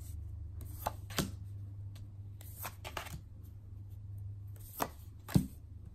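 Tarot cards being dealt from the deck and laid down on a wooden tabletop: a handful of sharp taps and slaps of card on wood, the loudest a little before the end, over a steady low hum.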